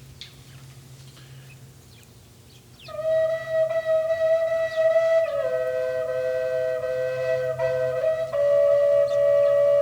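Triple drone flute music in A begins about three seconds in, after a faint stretch with a few light ticks. One note is held steady as a drone while a second line steps down below it and moves between a couple of low notes.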